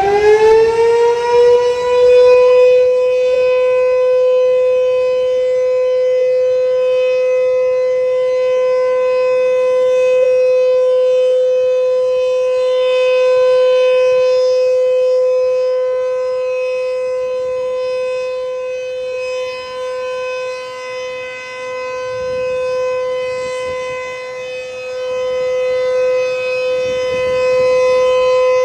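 Sentry 3V8HB outdoor warning siren finishing its wind-up: the pitch climbs for about two seconds, then holds one steady tone with strong overtones, a steady alert signal sounded for a siren test. The loudness swells and dips a little, most noticeably a few seconds from the end.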